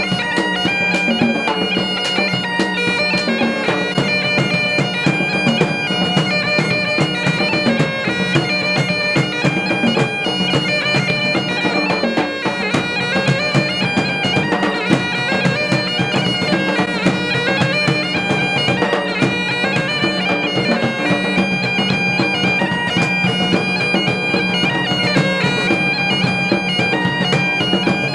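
Bagpipes playing a tune over their steady drone, with drums beating a dense, driving rhythm underneath.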